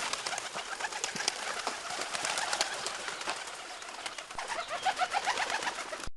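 Pigeons in flight: a dense run of wing flaps and claps, with short calls mixed in. The sound cuts off suddenly near the end.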